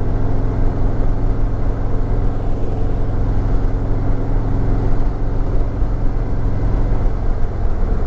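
Harley-Davidson Street Glide Special's V-twin engine running steadily at a cruise through its stock exhaust, heard from the rider's seat.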